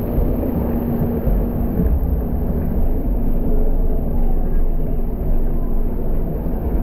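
Steady low rumble and rush of water during a ride down a water slide.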